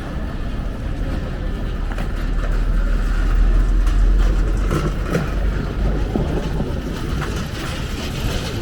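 Low rumble of a passing vehicle, swelling to its loudest a few seconds in and then fading, over steady street noise.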